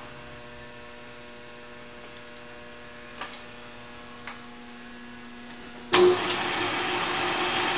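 Hardinge HLV lathe with its 1.5 hp three-phase drive: a quiet steady hum broken by a few clicks from the headstock levers, then about six seconds in the machine starts up suddenly and runs loudly.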